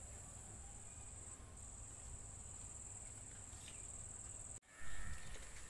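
Insects trilling in one steady high-pitched drone, with a brief break about a second and a half in. The sound cuts out for an instant about four and a half seconds in, then a short louder noise follows.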